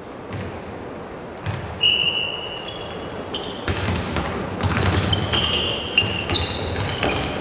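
Basketball dribbled on a wooden court, the bounces mixed with short, high sneaker squeaks as players cut and change direction. The squeaks and bounces get busier from about two seconds in.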